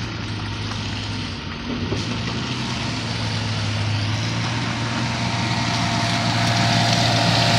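Engine of a lifted Jeep Cherokee XJ running at low speed as it crawls through mud, getting gradually louder as it approaches, over a steady low engine hum.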